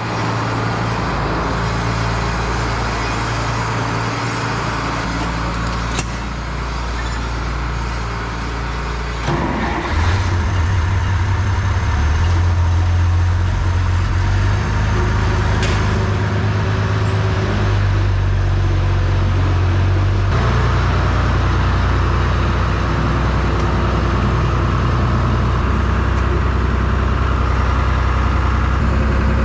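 Farm tractor engine running steadily, growing louder and heavier about ten seconds in and shifting again around twenty seconds in.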